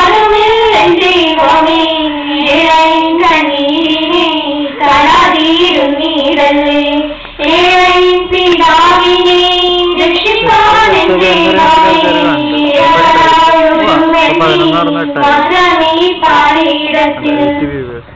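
A girl singing a song into a microphone, one melody line with long held notes, ending just before the narration resumes.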